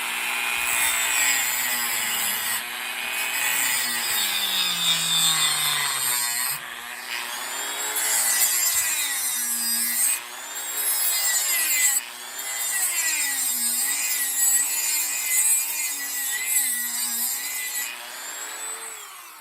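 A small high-speed rotary power tool grinding and cutting into the wooden Pinewood Derby car block. Its motor pitch dips and recovers again and again as it bites into the wood, and it winds down near the end.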